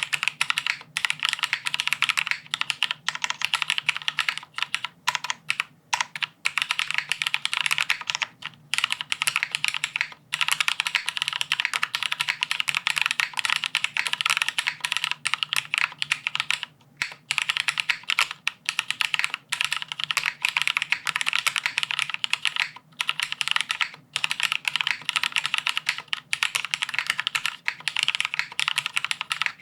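Fast, continuous typing on a Teahouse Cinque mechanical keyboard: plateless and sandwich-mounted, with lubed Cherry MX Black linear switches and GMK Vamp ABS keycaps. The keystrokes come in a dense stream, with a few brief pauses.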